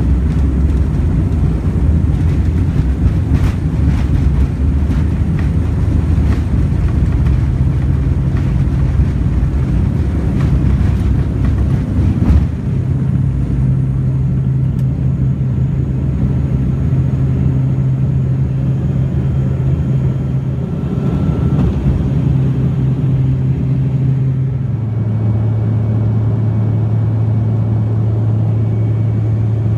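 A turboprop airliner's engine and propeller heard from inside the cabin, droning steadily with a low hum. The hum's pitch drops a step about 25 seconds in, and there is a short knock about 12 seconds in.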